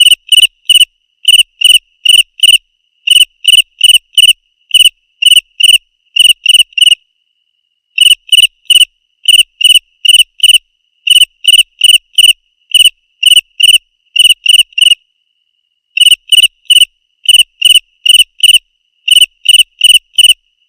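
Cricket chirping in short, loud groups of three or four high, even-pitched pulses, about one group a second, with a couple of longer pauses.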